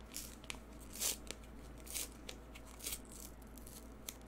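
A 2022 Topps Rip trading card, thick coated card stock, torn open along its perforations in a series of short, dry tearing rasps as the strip is pulled away.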